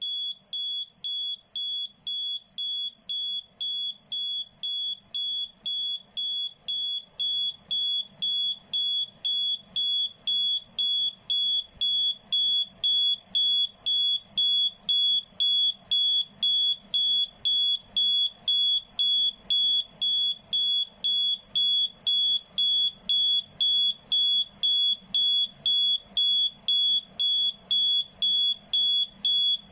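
Arduino real-time clock's alarm going off: a high electronic beep repeating about twice a second, getting a little louder over the first dozen seconds and then holding steady.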